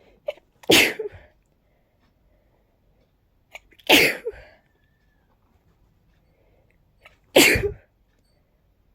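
A person sneezing three times, about three and a half seconds apart, in a sneezing fit. Each loud sneeze comes just after a short, quick intake of breath.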